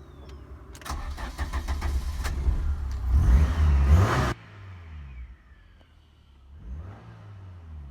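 Fiat Uno 1.1 ie's four-cylinder petrol engine cranking on the starter and catching about a second in. It revs up, then drops abruptly to a quieter, lower running with slow rises and falls in pitch.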